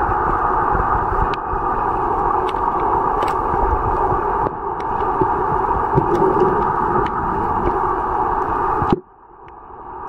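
Underwater ambience picked up by a camera in the sea: a steady muffled rushing noise with scattered faint sharp clicks. About nine seconds in it cuts out abruptly and then fades back in.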